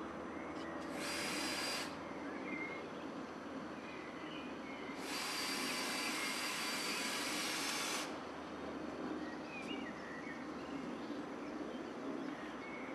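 A power tool runs in two short bursts, a hissing whir of about a second near the start and about three seconds in the middle, over a steady outdoor background with faint bird chirps.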